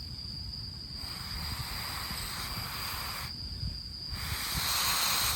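Air blown through a fire-blowing pipe onto the dying embers of a wet-wood campfire: two long hissing blows with a short pause for breath about three seconds in.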